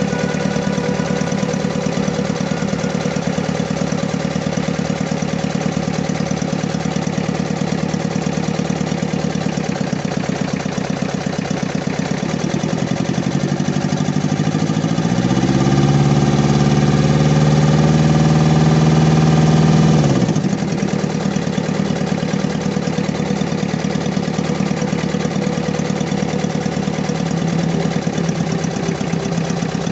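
Engine idling with a misfire and vibration, which the owner puts down to a misfiring injector in the fuel system. About halfway through it is revved up for some six seconds, then drops back to idle.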